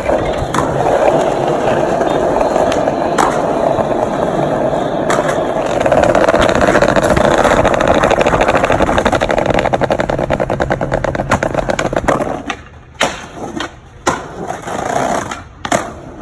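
Skateboard wheels rolling hard over brick paving, a steady rumble with a rapid clatter from the joints, then several sharp clacks of the board near the end.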